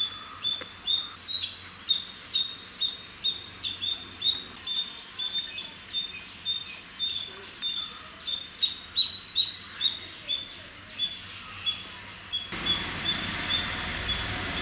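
A small animal's sharp, high chirp, repeated about twice a second.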